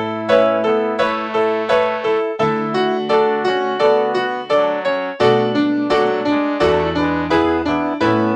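Piano accompaniment to a choral hymn with no singing: evenly repeated chords, about two to three a second, over held bass notes.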